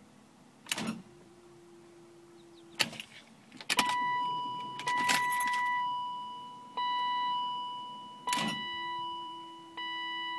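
Ignition key being turned in a 1998 BMW E36 M3 that won't start: sharp clicks, a low steady hum for a second or two after some of them, and an electronic warning chime that rings three times and fades each time. The engine never cranks.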